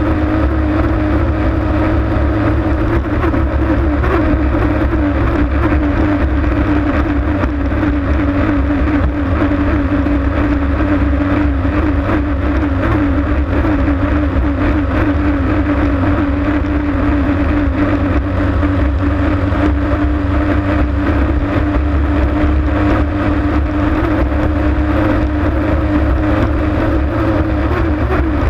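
Racing hydroplane's engine running flat out at a steady high speed, heard from onboard. Its pitch wavers slightly over a heavy low rumble.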